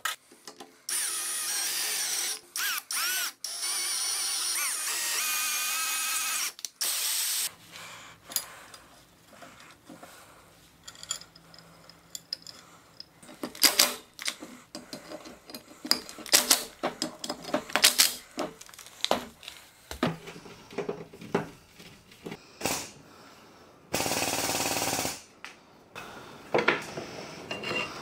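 A drill press drilling into a steel disc for about seven seconds, its motor whine over the cutting, then stopping sharply. After that come scattered metallic clicks and knocks with short runs of a cordless drill-driver driving screws into the disc, one steadier run of about a second near the end, and a few light metal clinks.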